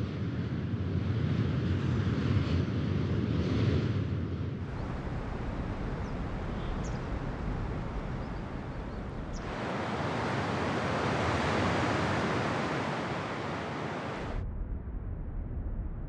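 Arctic wind, a montage of separate wind recordings cut one after another about every five seconds, each a steady rushing with gusts rising and falling. A few faint short high sounds in the second recording, about six to nine seconds in.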